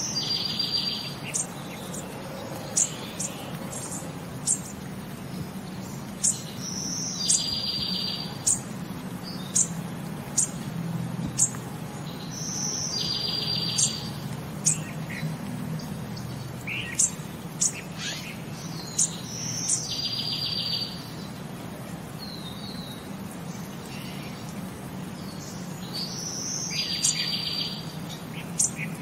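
Birds singing: one repeats a short high note followed by a rapid buzzy trill about every six to seven seconds, while sharp high chirps come between, over a low steady hum.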